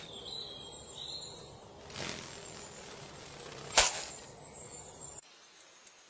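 Outdoor ambience with high, gliding bird chirps in the first second, a soft swish about two seconds in, and a louder, sharp swish a little before four seconds. The ambience cuts off suddenly at about five seconds, leaving a faint hiss.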